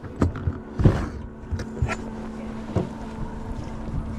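Steady low hum of a bass boat's electric trolling motor, with several short knocks and scuffs of handling on the boat and a louder brief rush of noise about a second in.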